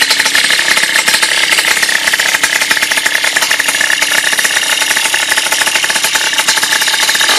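Morini 50 cc two-stroke single-cylinder engine on a motorized bicycle running steadily, on its very first run.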